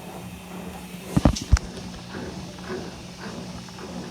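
Electrolux LF75 top-loading washing machine running with a low steady hum. Two sharp knocks come a little over a second in.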